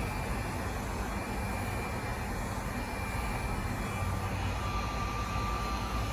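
Electric power sander running steadily on pocket bike body covers: an even whir with a thin whine that drops lower about four seconds in.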